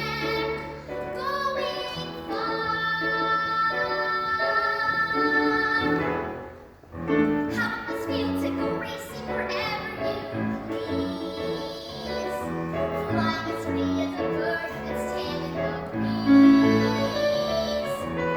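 A solo female voice singing a musical-theatre song over instrumental accompaniment, holding long notes with vibrato, with a brief pause for breath about seven seconds in.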